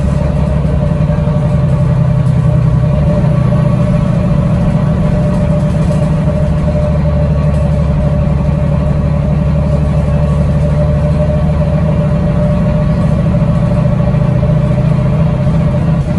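First bus 37997's engine running steadily while the bus is under way, heard from inside the passenger saloon: a constant low drone with a steady whine above it.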